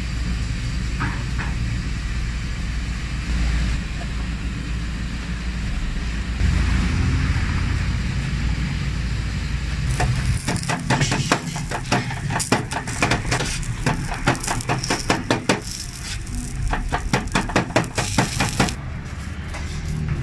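A low steady background rumble, then from about halfway a fast, uneven run of sharp knife strokes chopping on a board, several a second, with a brief pause partway and a stop near the end.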